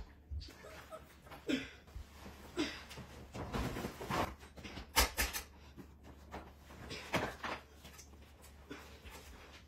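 Suitcases being shifted and lifted onto a bathroom scale: scattered knocks and thumps of hard-shell luggage, with a sharper cluster of knocks about five seconds in. A few short pitched vocal sounds come in the first three seconds.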